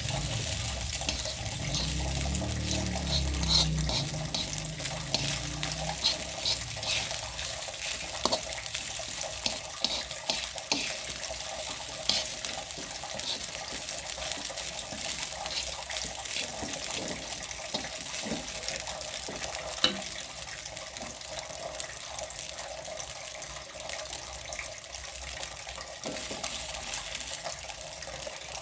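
Kitchen tap running steadily into a sink, with scattered light clicks and clinks as things are washed under it. A low hum sounds for the first few seconds.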